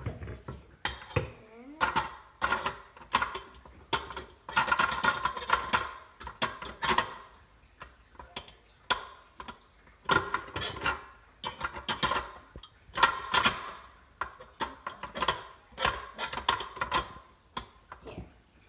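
Irregular clattering, knocks and clicks as a stand mixer and its hard parts are handled and set in place, some of the hits ringing briefly. The motor is not running.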